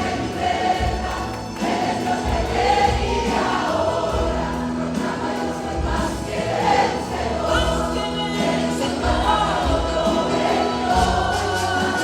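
Church choir singing a Christian worship song, with instrumental accompaniment carrying a repeated bass line under the voices.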